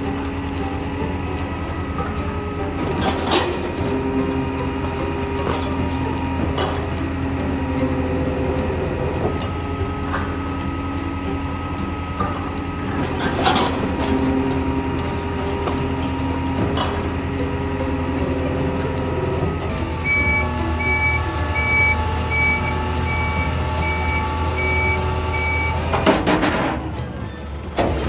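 Rotary-plate garbage truck's packer running, with a steady engine and hydraulic hum and sharp bangs about three seconds in and again about thirteen seconds in. About twenty seconds in, a truck's reversing alarm starts beeping regularly for about six seconds.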